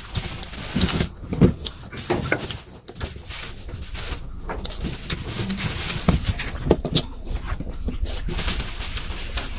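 Close-up chewing and lip-smacking: mouths working through rice and chicken liver and gizzard adobo eaten by hand, with irregular wet clicks and smacks.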